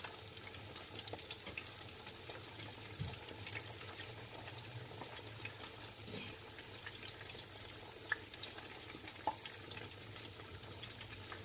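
Battered squash blossoms frying in shallow cooking oil in a pan: a faint, steady crackling sizzle. A few light clicks come from a fork turning the flowers against the pan.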